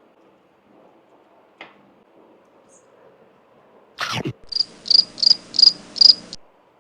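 A quick falling whoosh, then five high cricket chirps at about three a second, cut off abruptly. It is an added cricket sound effect.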